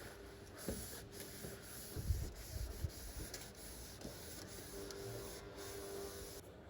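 Faint rubbing of a spirit-dampened cloth being wiped over a picture frame, with a few soft knocks as the frame is handled.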